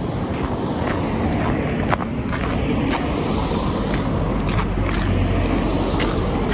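Footsteps at a walking pace, short sharp steps about once or twice a second, over a steady low rumble of road traffic.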